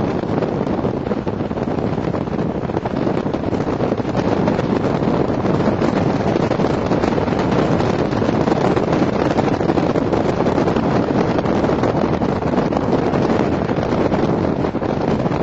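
Wind rushing over the microphone in a moving car, mixed with steady road noise; a little louder from about four seconds in.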